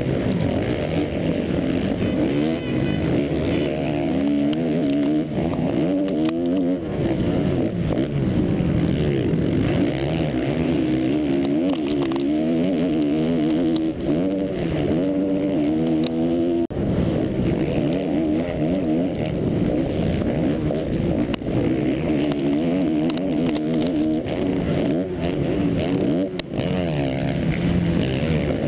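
Motocross bike engine heard up close from the bike itself, revving up and down over and over as the rider accelerates, shifts and backs off through the turns. Its loudness drops sharply for a moment about 17 seconds in.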